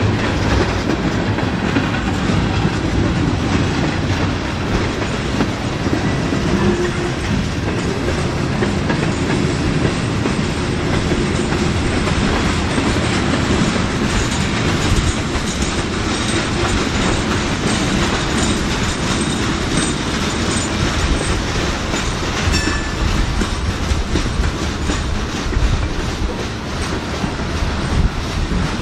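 Freight cars of a long freight train rolling past: tank cars and covered hoppers giving a steady rumble of wheels on rail, with a clickety-clack as the wheels cross the rail joints.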